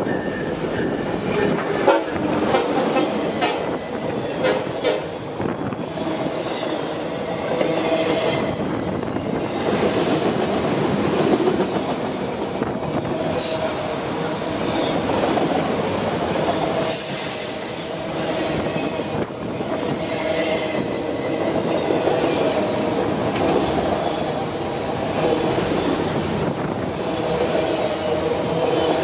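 A Norfolk Southern freight train passing close by. The diesel locomotive goes by at the start, then a long string of autorack cars rolls past with a steady rumble of wheels on rail. Sharp clicks of wheels crossing rail joints come in the first few seconds.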